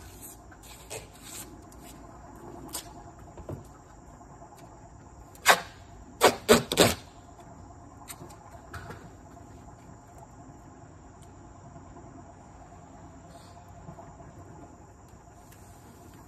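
Crickets or other insects trilling steadily. A little over five seconds in comes a sharp knock, then three quick loud clacks within about a second.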